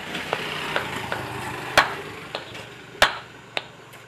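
A hammer striking the top of a tractor water pump's shaft, driving it into the pump body while a new bearing and seal kit is fitted: about seven sharp metal blows at uneven intervals, the loudest about two and three seconds in, over a rough steady hiss in the first half.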